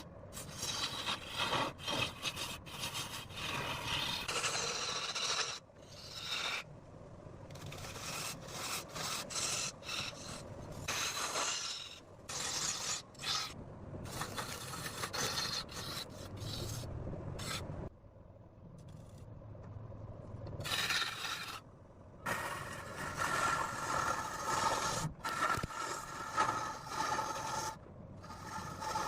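Turning tool cutting into rosewood spinning on a lathe: an uneven rasping scrape that breaks off briefly several times. In the last third a steady ringing tone rides on it.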